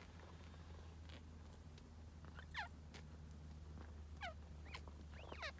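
Newborn kittens giving faint, thin squeaks, each falling steeply in pitch, a few scattered through the second half and several overlapping near the end.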